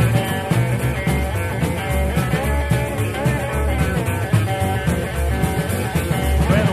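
Neorockabilly band music: an instrumental stretch with guitar over bass and a steady drum beat.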